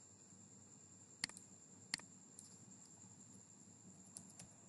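Quiet computer keyboard keystrokes: two single clicks about a second apart, then a quick run of taps near the end, over a faint steady high-pitched whine.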